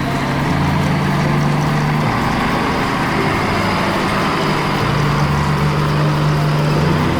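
Cartoon farm vehicle's engine sound effect running steadily, a low hum whose pitch steps down about two seconds in and back up about four and a half seconds in.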